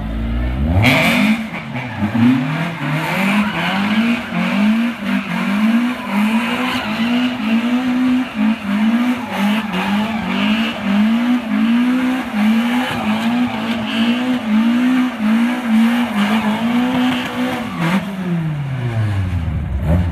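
Volvo S40 rally car doing donuts: the engine held at high revs that rise and fall in a quick, steady rhythm, with the tyres squealing and scrubbing on asphalt. Near the end the revs drop away and then climb again.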